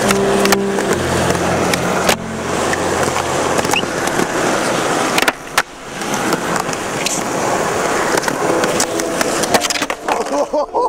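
Skateboard wheels rolling over stone paving with a steady rough rumble, broken by several sharp clacks of the board against the ground. Near the end the skater bails and the board clatters away.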